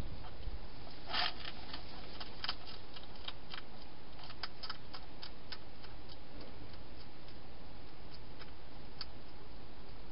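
A wild hedgehog crunching dry food: irregular sharp clicks, with a short scratchy scrape about a second in.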